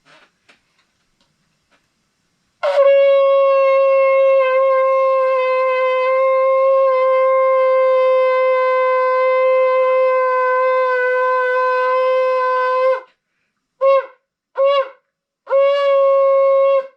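Ram's horn shofar blown: one long, steady blast of about ten seconds, then two short blasts and another held note near the end, all on the same pitch.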